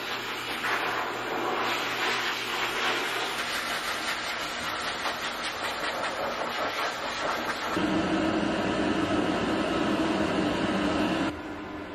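Hair dryer blowing on a wet dog's coat: a steady rush of air that grows louder, with a deeper hum, about eight seconds in, then drops back abruptly near the end.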